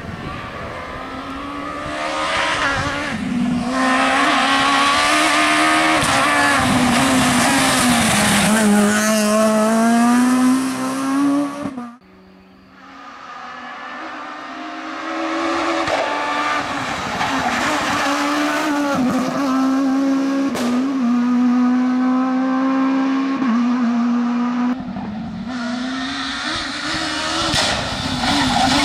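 Renault Clio S1600 rally car's 1.6-litre four-cylinder engine revving hard, its pitch rising and falling through gear changes and lifts as it drives a tarmac stage. The sound breaks off abruptly about twelve seconds in and a second pass of the same car builds up again.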